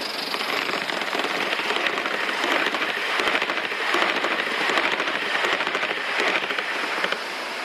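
G-scale model train rolling along its track, a dense clatter of small wheel-on-rail clicks that swells in the middle and drops off abruptly about seven seconds in.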